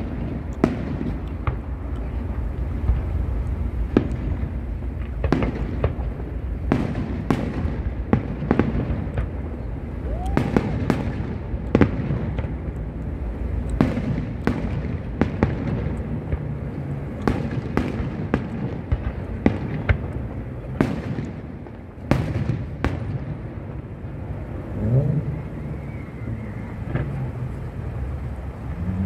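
Aerial fireworks display: shell bursts banging in irregular quick succession, one or more a second over a continuous rumble, thinning out in the last few seconds.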